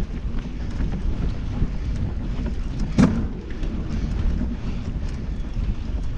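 Mountain bike rolling slowly over a dirt forest trail, heard as a steady low rumble and rattle through a camera mounted on the handlebars. One sharp knock comes about halfway through.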